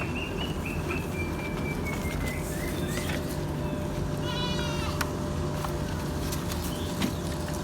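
Etawa goat bleating once, briefly, about four seconds in, over a steady low hum.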